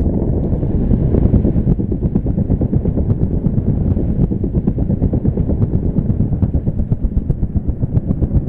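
Storm wind battering the microphone: a loud, low rumble full of rapid, uneven flutters.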